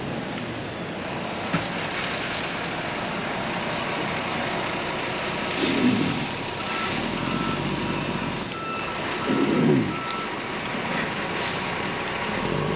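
Diesel concrete truck running, its reversing beeper sounding about four short beeps a little past halfway through, with two brief louder surges from the engine or truck.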